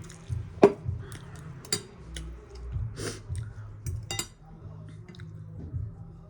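Several sharp clinks and clicks of eating utensils against dishes, the loudest about two-thirds of a second in. Under them runs a low bass beat from music playing downstairs.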